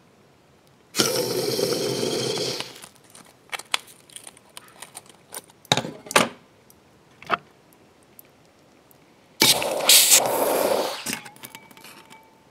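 Hydrogen-oxygen (HHO) torch flame hissing loudly in two bursts of about two seconds each, with sharp crackles and pops between them.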